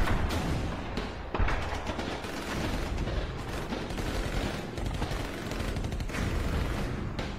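Rapid small-arms gunfire, many shots overlapping in a continuous volley, with one sharper crack about a second and a half in.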